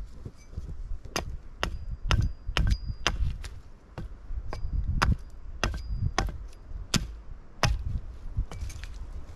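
Hatchet chopping into a wooden pole: about a dozen sharp strokes at roughly two a second, in two runs with a short pause around four seconds in.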